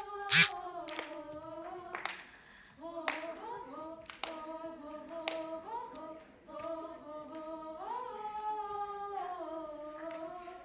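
Two women singing a song unaccompanied through microphones, their voices held and gliding in long notes. A loud sharp clap about half a second in ends a run of regular claps, and a few fainter claps follow.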